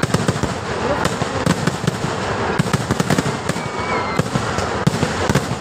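Aerial fireworks display: a dense, rapid barrage of cracks and bangs with no break, and a few brief whistling tones about three and a half seconds in.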